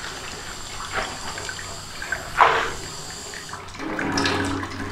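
Kitchen tap running into a stainless-steel sink, water splashing as a plate is rinsed, with one brief sharp sound about two and a half seconds in. Near the end the water runs onto the plate held under the stream and the sound turns fuller and lower.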